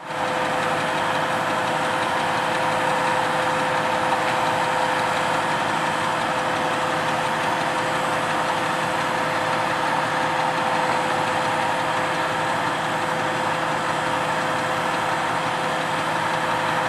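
Asphalt paver's engine running steadily as it lays asphalt, an even mechanical drone with a steady whine through it.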